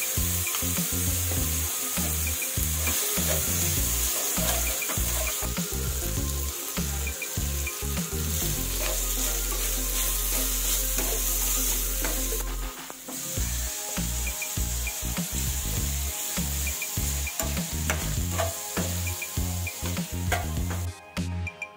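Onions, green chillies and ginger-garlic paste sizzling in hot oil in a nonstick pan, stirred and scraped with a metal slotted spatula.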